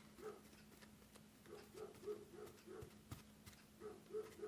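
Near silence: faint room tone with a steady low hum, a soft pulsing sound repeating a few times a second, and scattered faint clicks.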